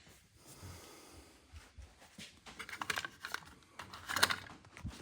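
Handling noises at HVAC equipment: scattered light clicks and rustling, a quick cluster of clicks about three seconds in, and a sharper knock just after four seconds.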